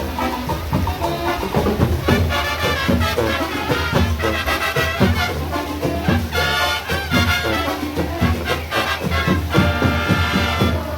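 Parade band playing brass-and-drum music with a steady beat.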